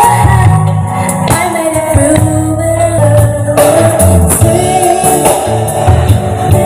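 Loud music with singing over a heavy bass line, played through a large stack of PA subwoofer and mid-high speaker cabinets during a sound system demo.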